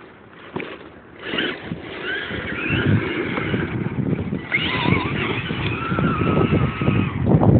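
Electric 775 motors of an E-Maxx RC monster truck whining under throttle, the pitch rising and falling, starting about a second in and getting louder toward the end, with the tyres crackling over dirt and gravel.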